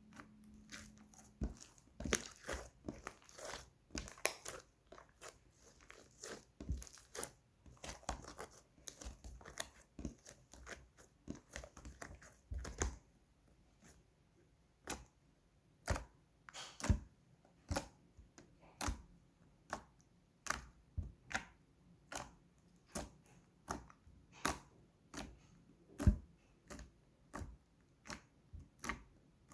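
White slime being squeezed and pressed by hand, giving irregular sticky pops and clicks, rapid and bunched together in the first half and more spaced out later.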